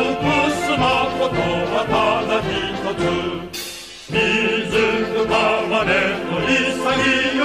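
A Japanese military song (gunka) sung with vibrato over instrumental accompaniment, in a slow, solemn style. The singing drops away briefly a little under four seconds in, then comes back with the next line.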